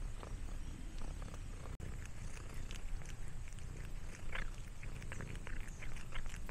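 Orange tabby cat purring, then, about two seconds in, licking and chewing a snack from a hand up close: a rapid run of small licking and chewing clicks.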